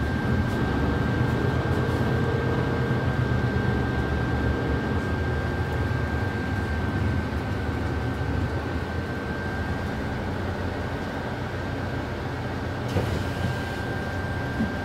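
A bus heard from inside the passenger cabin while it drives: steady engine and road noise with a thin, steady high whine over it, and a couple of light knocks near the end.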